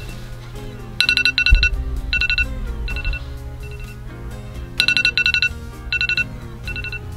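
iPhone alarm ringing: groups of rapid high electronic beeps that repeat about every four seconds, with sparser beeps between the groups. A low bump about a second and a half in.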